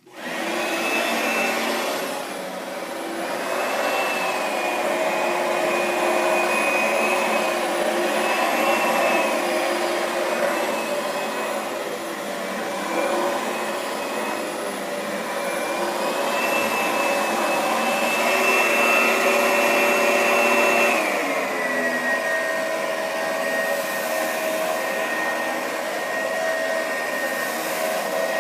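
Oreck LW100 upright vacuum cleaner switched on and running on its high motor speed, its whine wavering in pitch. About three-quarters of the way through, the motor is switched to its lower speed for bare floor, and the whine drops to a lower, steady pitch.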